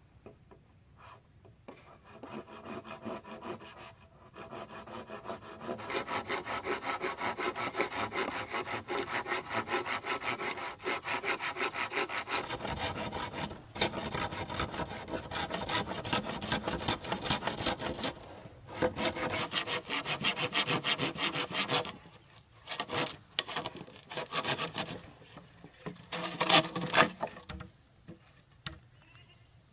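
Hand saw cutting wood with quick, steady back-and-forth strokes, pausing briefly a few times. The loudest strokes come near the end.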